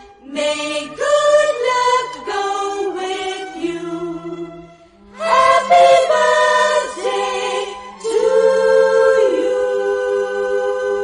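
A group of young children singing a song together, in phrases with long held notes.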